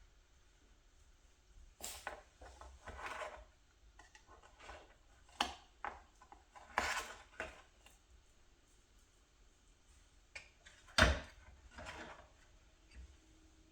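Dishes and utensils being handled in a kitchen: scattered clinks, knocks and short scrapes at an uneven pace, with the loudest knock about eleven seconds in.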